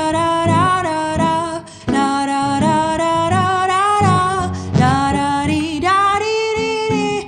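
A song sung in wordless 'la ra la ra' syllables, the voice moving quickly from note to note over a musical accompaniment.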